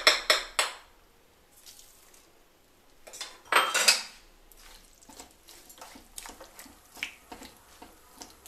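Kitchen utensils clinking: a few quick metal clicks at the start, a louder clatter about three and a half seconds in as salt is added, then a steel ladle tapping and scraping in a metal pan of coconut-milk stew as it is stirred.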